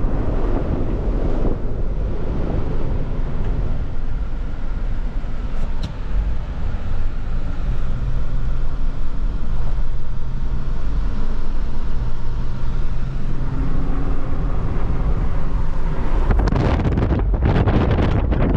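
A four-wheel-drive Jeep being driven through deep snow: the engine runs steadily under a constant low rumble of tyre and road noise. A louder, rough rushing noise comes in about 16 seconds in.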